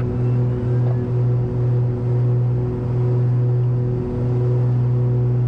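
Steady drone of a Cessna 340's twin turbocharged piston engines and propellers in a climb, heard inside the cabin.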